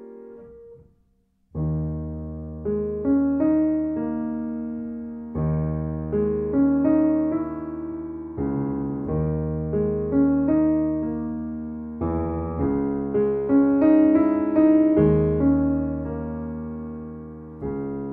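Steinway grand piano played solo. A chord dies away into a short pause about a second in, then the playing resumes with low bass chords struck every three seconds or so under a moving line of notes above.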